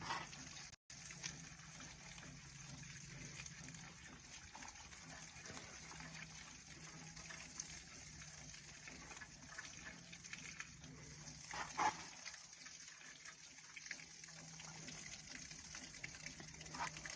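Water running and spraying steadily from an improvised pressurized shower whose pressure valve has just been opened, with a brief louder noise about twelve seconds in.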